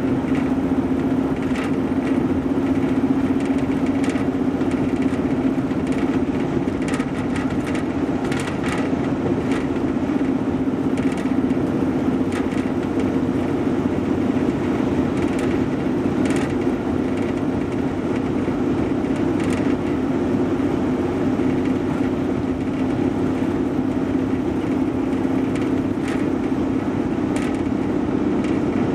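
Steady road noise inside a car cruising at highway speed: tyres and engine make a constant low drone with a steady hum in it, and light ticks and rattles come and go.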